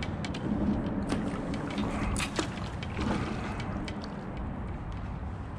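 Water sloshing against a plastic kayak hull, over a low steady rumble, with scattered light clicks and knocks.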